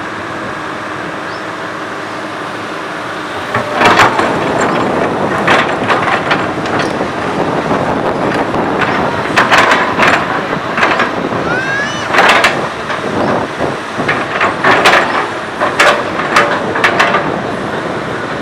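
Komatsu PC200 hydraulic excavator's diesel engine running steadily, then working harder from about four seconds in, with repeated metallic clanks and knocks and a brief rising squeal near the middle.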